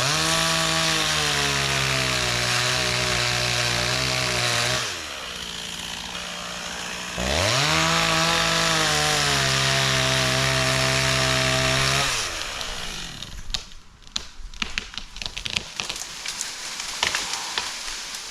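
Stihl MS260 two-stroke chainsaw cutting into a tree at full throttle. It drops back to a lower speed for about two seconds, revs up and cuts again, then stops about twelve seconds in. Scattered cracks and rustling follow for the last few seconds.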